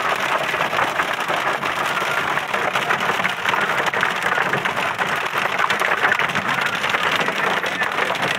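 Heavy hail falling on a car's roof and windshield, heard from inside the car: a steady, dense clatter of countless small impacts.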